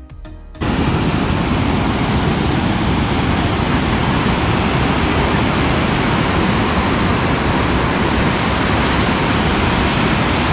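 Loud, steady rush of a wide waterfall cascading over rock ledges, cutting in abruptly about half a second in.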